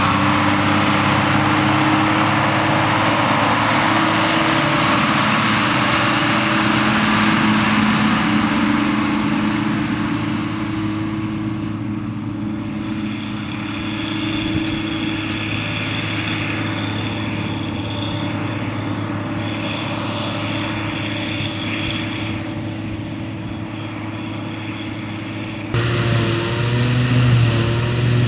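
Schlüter tractor's diesel engine running steadily as it pulls a loaded silage wagon away, the sound slowly fading. Near the end it cuts abruptly to a louder engine sound from a Claas Jaguar forage harvester chopping grass with a tractor and wagon alongside.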